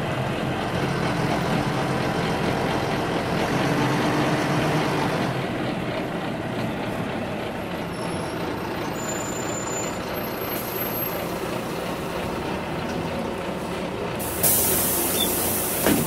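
Inside a city bus: steady engine and road noise. About a second and a half before the end, the bus's air system releases with a loud hiss.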